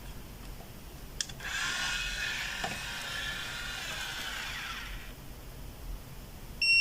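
Automatic curling iron: a click about a second in, then its motor whirs for nearly four seconds as it draws a lock of hair into the heated barrel, and stops. Right at the end its beep starts, the signal that the curl is done.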